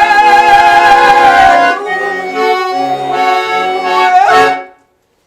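Garmon (Russian button accordion) playing the closing bars of a folk song with no voice: a loud held chord for about the first second and a half, then a quieter phrase that ends on a final chord about four seconds in. The sound then cuts off suddenly into silence.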